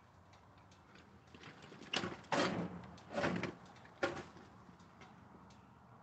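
A wheeled cart being rolled and shoved into place beside the stopped sawmill: four short scraping, rumbling noises about two to four seconds in.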